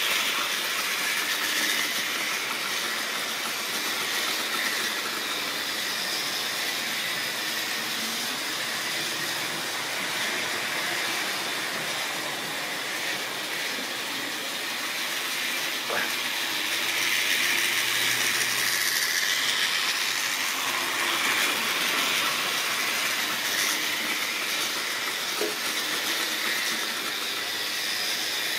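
Model railway train running along the track, with a steady whirr of the small electric motor and the rattle of the wagons' wheels on the rails. It grows louder in the second half as the train comes near, with one sharp click a little past the middle.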